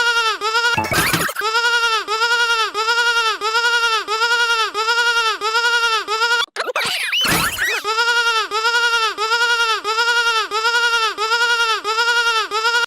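Electronic bleating-sheep sound effect: a pitched tone with many overtones wavering in an even warble about three times a second. It is broken twice by short noisy bursts with sliding pitch, about a second in and again around the middle.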